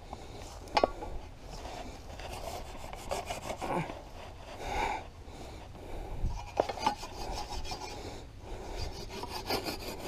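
Leather upholstery of an armchair rubbing and scraping against hands as it is handled and carried, with a few sharp knocks.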